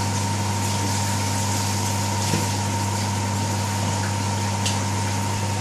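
Steady low hum with a thin high tone over an even hiss, with a couple of faint ticks: the kitchen's background noise while the onion-and-spice mix fries in the pot.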